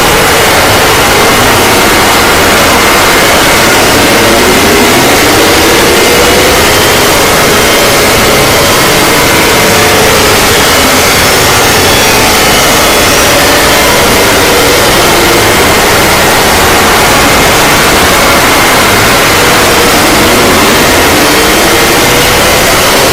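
Loud, harsh static-like noise at every pitch, steady throughout, with faint wailing siren glides rising and falling underneath it.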